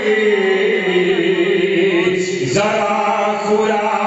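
A man chanting a devotional verse, holding one long note that slowly sinks in pitch. The note breaks off about two and a half seconds in, and the next sung line begins.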